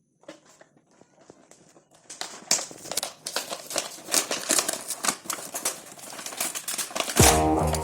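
Toy packaging being handled and opened: dense crinkling and rustling with many sharp clicks, building up about two seconds in. Background music starts near the end.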